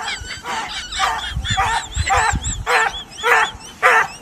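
An animal calling in a quick series of short, pitched calls, about two a second, each rising and falling in pitch.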